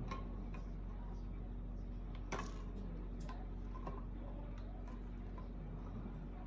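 A hand can opener clicking as it works round a can of corn: sparse, light, irregular clicks over a steady low hum.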